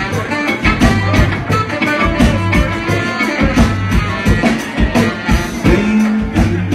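Live band playing: drum kit keeping a steady beat under electric guitar and saxophones, with no vocals.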